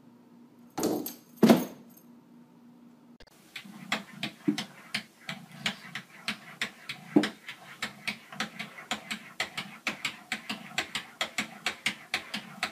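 An orange cat's paws tapping and patting rapidly against a bathroom mirror, a quick run of sharp taps at about three a second. Before that, two short loud sounds about a second in.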